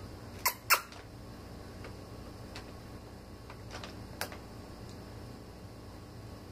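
Faint scattered clicks and light taps from a cat batting a ball that hangs inside its toy play fort. The two sharpest clicks come about half a second in, and a few fainter ticks follow, over a low steady room hum.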